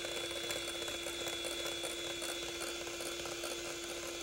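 Electric hand mixer running steadily with a constant motor hum, its beaters whipping egg yolks in a glass bowl as oil goes in drop by drop to start a mayonnaise emulsion.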